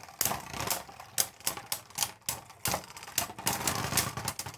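Two Beyblade Burst spinning tops, Erase Diabolos and Fusion, clashing in a plastic stadium during a battle. Their hits make sharp, irregular clicks, roughly three a second.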